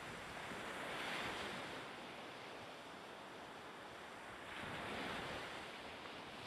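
Sea waves rushing with wind, an even wash that swells twice, about a second in and again near five seconds.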